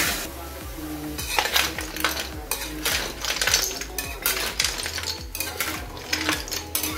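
A utensil stirring seashells in a cooking pan: many quick clinks and clatters starting about a second in.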